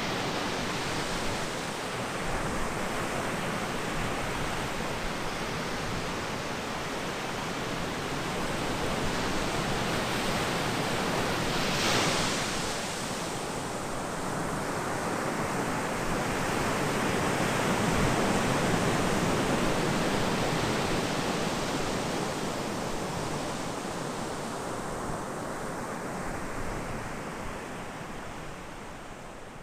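Ocean surf washing onto a beach, swelling as waves break, with a loud surge about twelve seconds in and another a few seconds later, then fading toward the end.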